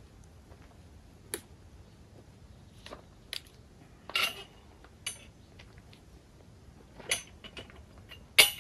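Irregular light clicks and clinks of small hard objects being handled, about eight in all, with the loudest near the end.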